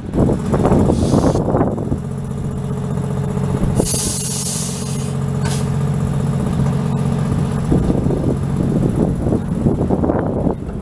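Toronto CLRV streetcar moving past at close range, its electrical equipment giving a steady low hum that fades out near the end. A short hiss of air comes about four seconds in.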